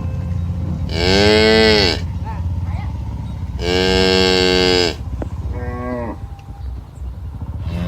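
Cows mooing: two long moos, about a second in and about three and a half seconds in, then a shorter one around five and a half seconds, over a steady low rumble.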